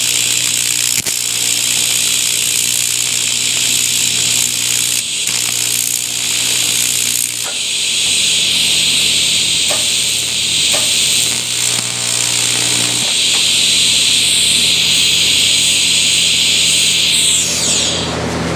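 AC TIG welding arc on a cast aluminum part: a steady buzzing hiss over a low hum, dipping briefly a couple of times as the foot pedal is worked, then sweeping down and cutting out shortly before the end as the arc is shut off.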